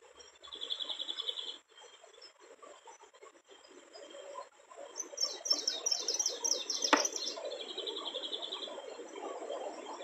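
Small songbirds singing nearby: a fast high trill about half a second in and again near the end, and a quick series of falling chirps from about five seconds in. A single sharp click sounds about seven seconds in, over a low rustling.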